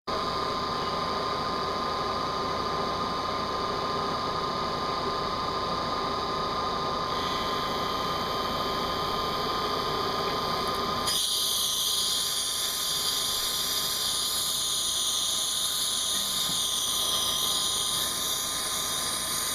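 CNC milling machine running, with a high-pitched spindle whine and cutting noise. About 11 s in the sound turns to a much brighter, higher hiss and the lower rumble falls away.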